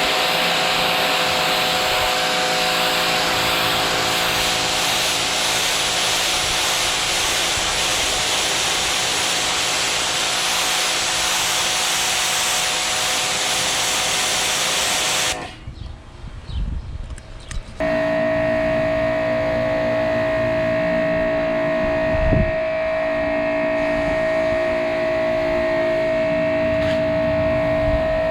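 Ryobi 2000 psi electric pressure washer spraying through a 15-degree nozzle: a loud hiss of water over a steady motor whine. About halfway through it stops suddenly for about two seconds, then starts again with a steadier whine and less hiss.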